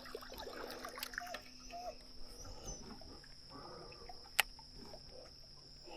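Faint evening ambience: a steady high-pitched insect drone, a few short animal chirps early on that glide in pitch, and one sharp click about four seconds in.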